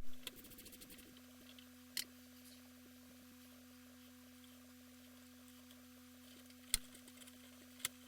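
A steady electrical hum with a few sharp clicks and taps of small hardware being handled, a cluster at the start and single clicks about 2 s in and near the end. The audio is sped up.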